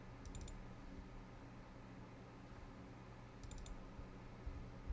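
Computer mouse clicking: a short cluster of quick clicks about a quarter second in and another about three and a half seconds in, over a faint steady low hum.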